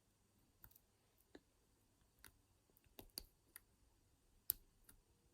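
Faint, irregular small metal clicks of a lock pick and tension tool working inside the keyway of an all-brass Yale 40mm padlock, about eight in all, the sharpest about four and a half seconds in.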